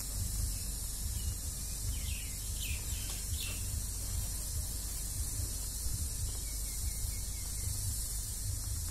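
A few short bird chirps about two to three and a half seconds in, over a steady hiss and low rumble.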